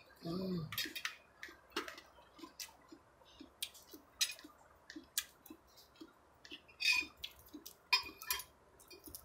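Metal cutlery clicking and scraping on plates and crab shell as a crab meal is eaten, in scattered sharp clicks throughout. A short hummed voice sound about half a second in.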